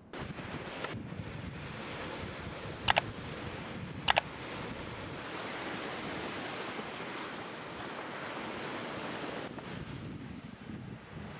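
Surf breaking and washing up a sandy beach, a steady rush of noise with some wind on the microphone. Two sharp clicks stand out, about three and four seconds in.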